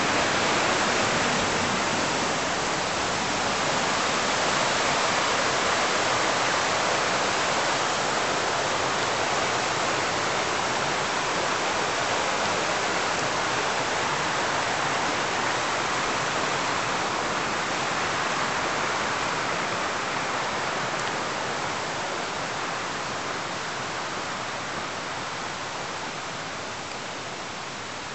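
A rain-fed mountain creek flowing, a steady rushing of water that slowly grows fainter over the last third.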